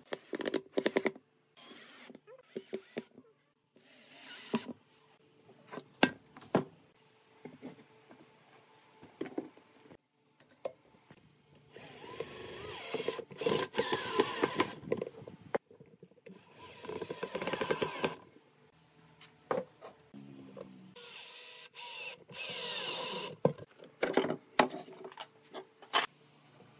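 Cordless drill-driver running in several bursts, the longest about three seconds, as it drives screws through car-tyre rubber into a wooden seat. Sharp clicks and knocks of handling come between the bursts.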